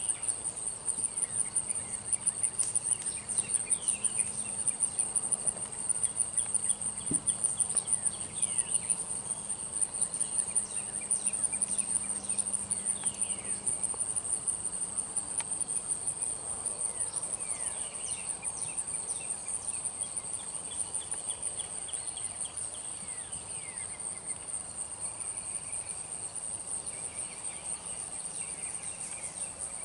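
Insects chirring in a steady, high, fast-pulsing drone, with birds chirping and trilling now and then over it.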